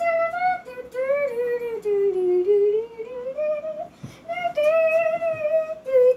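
A child singing wordlessly in a high voice: long held notes that sag slowly in pitch and climb back, with a short break about four seconds in.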